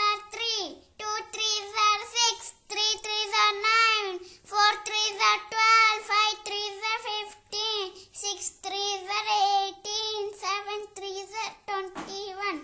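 A child's voice chanting multiplication facts of the three times table in a steady sing-song, one short phrase about every second with brief pauses between.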